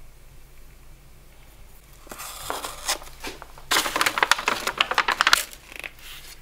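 Stiff kraft wrapping paper being unfolded by hand, crinkling and rustling. A first short burst about two seconds in, then a louder, longer stretch of crackling from just under four seconds to past five.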